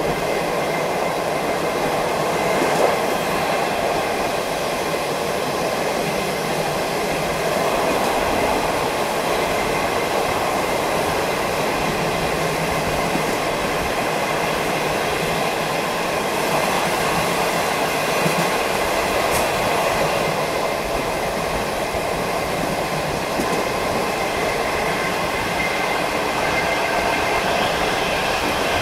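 Steady rushing wind and running noise inside a moving non-air-conditioned passenger coach, with the wheels rolling on the rails beneath. The noise holds even and loud, with a faint steady whine mixed in.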